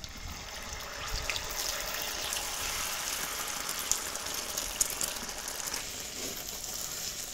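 Beaten egg poured onto a hot, oiled flat iron griddle, sizzling and spattering in the oil, with scattered sharp pops and crackles. The sizzle builds about a second in and eases slightly near the end.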